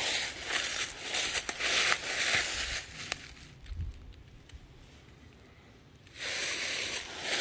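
Footsteps crunching through dry fallen leaves, about two steps a second. The steps stop for about three seconds midway, then start again.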